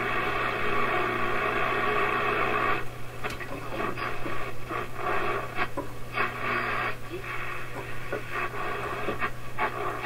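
Sylvania five-tube AM clock radio playing a received signal through its small speaker, the sound thin and band-limited, over a steady low hum.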